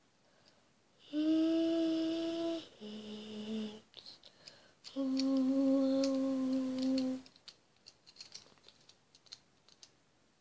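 A boy hums three long held notes, the middle one lower and shorter. Faint clicks of Lego pieces being handled come between the notes and after them.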